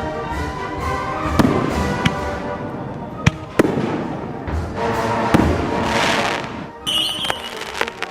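Fireworks going off: several sharp bangs and a crackling hiss, heard over wind-band march music.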